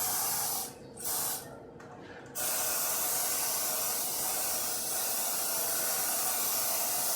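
Aerosol cooking spray hissing onto a baking pan to grease it: a short spurt, a brief one about a second in, then one long steady spray from about two and a half seconds on.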